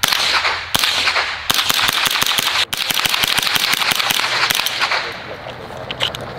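AR-15-style rifle firing: two single shots, then a fast string of shots for about three and a half seconds, broken once briefly, each crack echoing. A few scattered shots follow near the end.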